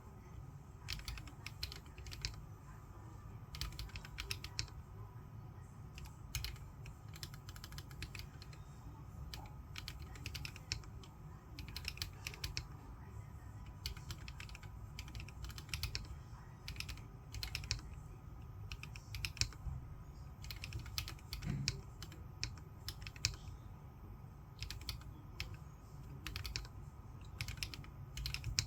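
Typing on a Corne v3 split mechanical keyboard with lubed switches and Lumia Macha keycaps: a continuous, irregular stream of keystrokes.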